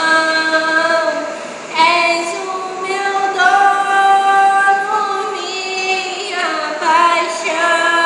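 Female voice singing long, held notes with vibrato, phrase after phrase, with a short break in the line a little under two seconds in.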